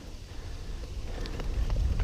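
Low rumbling wind buffeting on the microphone that grows louder through the second half, with a few faint clicks, during a push-start of a motorcycle.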